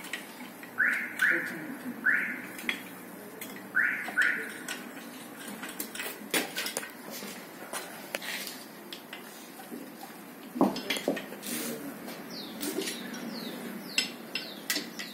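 Spanners and a ratchet clinking and knocking against the metal of a Tata Ace Mega engine's cylinder head as it is being taken apart, in a string of irregular sharp clicks. A run of five short high chirps sounds in the first few seconds, and thin bird chirps come in near the end.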